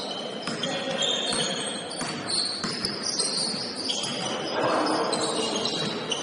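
Basketball game on a gym court: sneakers squeak in short, high chirps over and over, with a ball bouncing.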